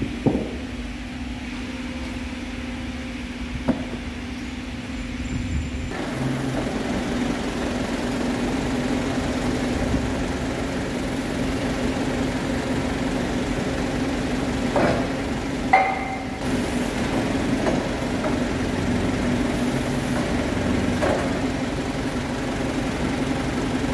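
Metalworking centre lathe running with a steady hum while machining a hydraulic cylinder barrel. It turns louder and rougher about six seconds in, with a few sharp knocks.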